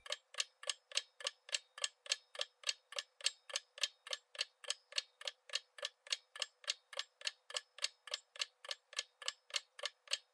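Countdown-timer sound effect: a clock ticking evenly about three to four times a second, thin and high with no bass.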